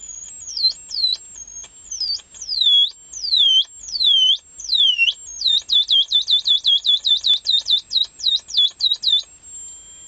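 Homemade blocking-oscillator sound generator (an old wall transformer driven by a Darlington transistor) making bird-like electronic chirps, high tones sweeping downward. The chirps come slowly at first, sweeping deeper each time, then in a fast run of about five a second, and settle into a steady high whistle near the end as the potentiometer across the transformer's secondary coil is turned.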